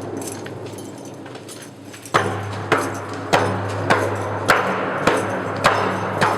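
Sharp, evenly spaced knocks, about one every 0.6 seconds, over a steady low hum, starting abruptly about two seconds in.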